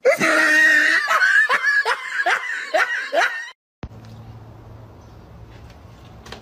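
A person laughing in a quick series of falling "ha"s, cut off suddenly about three and a half seconds in, followed by a quiet steady low hum.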